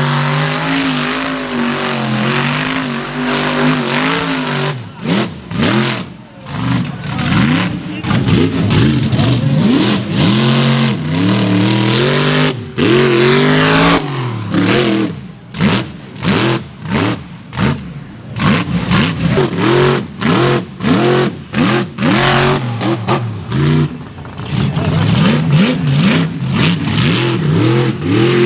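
Mega truck engine revving hard in repeated bursts, its pitch climbing and dropping over and over, with many sudden cut-offs as the throttle snaps shut.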